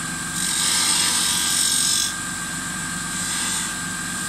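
Wood lathe running with a steady motor whine while a turning tool is fed into the spinning wooden blank for a shallow plunge cut about 3 mm deep. The hissing scrape of the cut is loud for the first two seconds or so, then drops away, leaving the lathe running with only light cutting.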